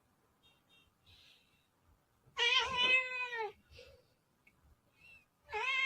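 A cat meowing: two long, drawn-out meows, the first about two seconds in and the second starting near the end, each dropping in pitch as it ends.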